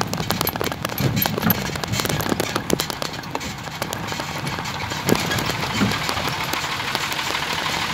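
A vehicle driving slowly over a rough, stony dirt road: an irregular crackle of clicks and knocks from tyres on loose stones and the body rattling, with a low engine rumble underneath.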